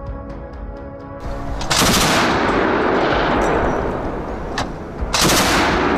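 Background music, cut off about a second and a half in by loud bursts of automatic gunfire: rapid shots in a dense run that fades, then a second loud burst about five seconds in.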